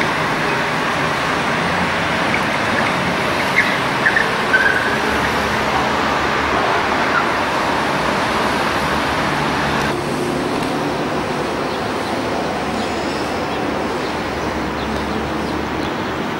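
Road traffic at a city intersection, with cars and a trolleybus moving through, heard as a steady wash of noise. A few short high squeaks come about four seconds in, and the sound eases slightly about ten seconds in.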